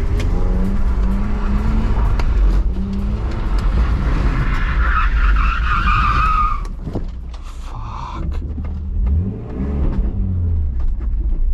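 BMW E46 320i's M54B22 straight-six pulling under throttle while the car slides sideways on a wet surface. About four seconds in a loud tyre squeal starts and cuts off suddenly near the seven-second mark. After that the engine drops back and revs briefly once more.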